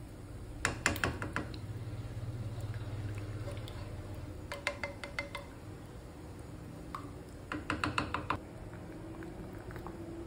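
A silicone spatula clicking and tapping against the rim of a pot and the inside of a plastic paste tub in three short runs of quick clicks, as soybean paste and hot pepper paste are scooped out and stirred into rice water, over a low steady hum.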